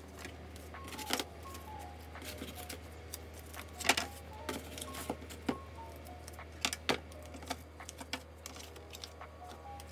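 Plastic pens and stationery being handled and set down: scattered sharp clicks and clatters, with the loudest knocks about four seconds and about seven seconds in.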